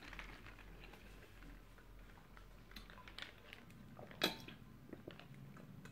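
Faint eating and drinking sounds: quiet chewing and small scattered clicks, then a drink from a plastic cup with one sharper click a little over four seconds in.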